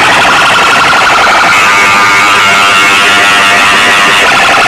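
Massed horn loudspeakers of a DJ sound rig blasting a harsh, distorted, buzzing electronic tone at full volume, siren-like. Its pitch moves up about a second and a half in.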